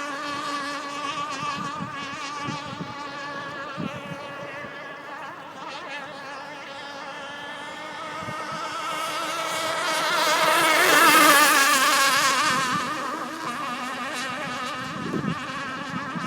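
G4 Mobster RC hydroplane's Quickdraw 25HT engine buzzing at high revs as the boat runs laps. It grows louder as the boat passes closest, about eleven seconds in, then fades again.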